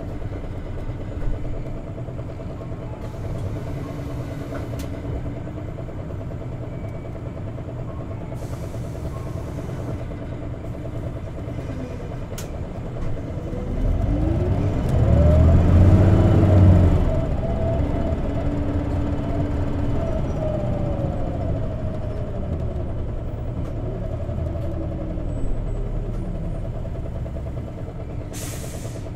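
Isuzu Erga CNG city bus's natural-gas engine heard from inside the cabin while the bus drives. It pulls harder about halfway through, getting louder with its pitch rising and then falling, before settling back to a steady run. A few short hisses of air come and go.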